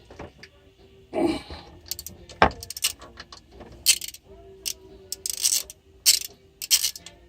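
Hand ratchet clicking in several short strokes as the power steering pump's mounting bolts are loosened, with metal tool clinks and a couple of knocks near the start.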